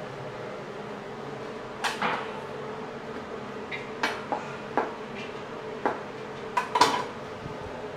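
A kitchen knife coming down on a plastic cutting board in a few irregular chops, about eight sharp knocks with the loudest near the end, over a steady hum.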